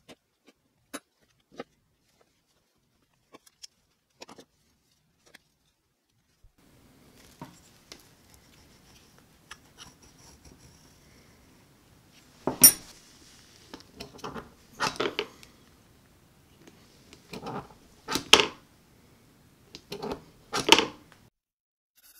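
Hand tools and plastic spring clamps handled on a workbench: scattered small clicks at first, then several loud sharp clacks and scrapes in the second half.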